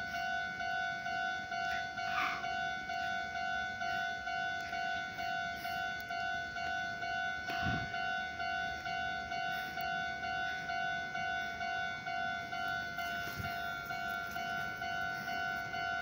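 Japanese railway level-crossing warning bell ringing steadily, an electronic two-tone ding repeated at an even pace, the signal that a train is coming and the gates are down.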